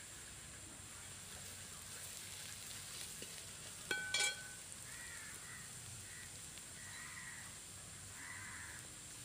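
A metal spoon stirs squid pieces and chilli powder in a metal plate. About four seconds in it clinks sharply against the plate a few times with a short ringing note. Faint bird calls sound several times afterwards over a steady low hiss.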